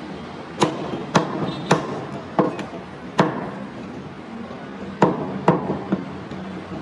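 Butcher's knife chopping goat meat on a wooden chopping block, about seven sharp chops. Five come in quick succession, then after a pause of nearly two seconds two more follow close together.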